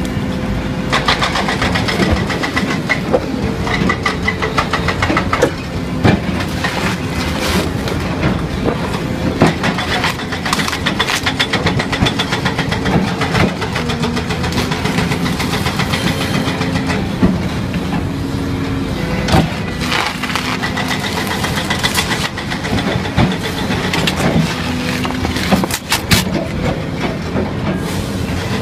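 Hydraulic vibro ripper on an excavator breaking rock: the tooth chatters against the stone in a dense, rapid rattle over the steady running of the excavator's diesel engine, with a few louder knocks of stone now and then.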